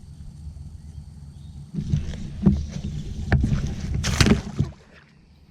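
Water splashing and sharp knocks around a kayak for about three seconds, starting about two seconds in, over a low steady rumble.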